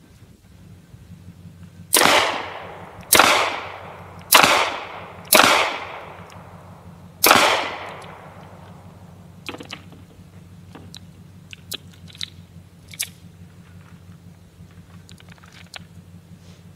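Five shots from a Smith & Wesson M&P Shield 9mm pistol, about a second apart with a longer pause before the last, each trailing off in a short echo. A few faint clicks follow.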